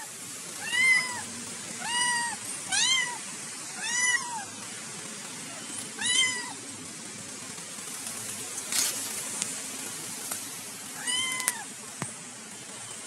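A cat meowing in short calls, each rising and falling in pitch. There are six of them: five close together in the first half and one more near the end.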